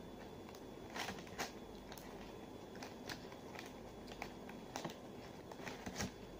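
Eating sounds: a spoon scooping mashed potato from a small cup, making a scattering of short, sharp clicks and scrapes against the cup.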